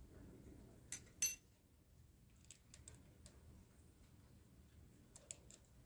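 Light metallic clinks of a hex key being handled at a mill's boring head: two sharp clicks about a second in, then a few fainter taps.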